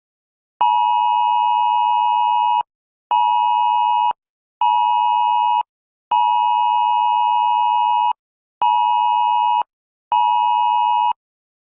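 Emergency Alert System–style two-tone alert signal sounding as six steady beeps: a two-second tone followed by two one-second tones, a pattern played twice with short gaps between the beeps.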